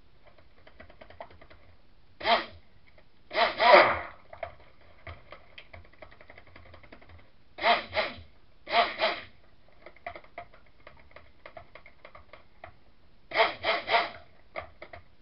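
Stick blender pulsed in short bursts of about half a second, in clusters of two or three, mixing soap batter. Between the bursts, faint scraping and tapping of the blender head in the bowl.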